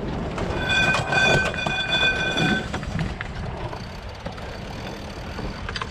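A horn sounds one steady, multi-note blast of about two seconds, heard over wind noise on the microphone.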